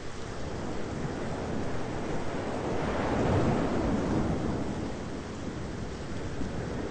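Thunderstorm ambience: a steady rushing of wind and rain with a low rumble that swells about three seconds in and slowly fades.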